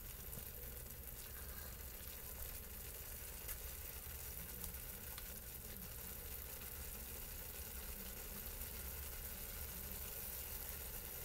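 Instant noodles in sauce sizzling and simmering in a pan, a steady low hiss, with a few faint clicks from chopsticks stirring them.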